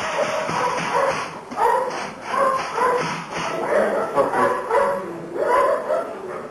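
Belgian Malinois giving a string of short, high yelps and barks, worked up during bite work on a decoy's padded sleeve.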